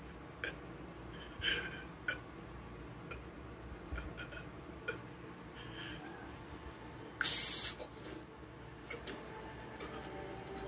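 Small clicks and taps of things being set down and handled on a table over quiet room tone, with one short, loud hiss about seven seconds in.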